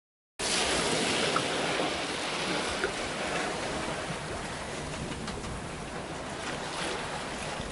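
Wind and choppy sea rushing past a sailboat under way, a steady wash of noise. It starts suddenly about half a second in.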